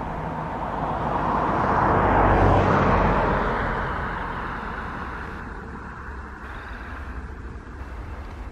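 Twin jet engines of an Embraer E-Jet airliner at takeoff power on the takeoff roll: a rushing noise that swells to its loudest about two and a half seconds in as the jet passes, then slowly fades as it speeds away and lifts off.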